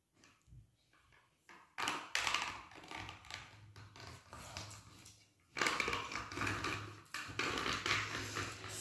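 Fingernails picking and scratching at the seal on top of a plastic peanut butter jar, tearing it open: nearly quiet at first, then bouts of scratchy crackling from about two seconds in, loudest in the last three seconds.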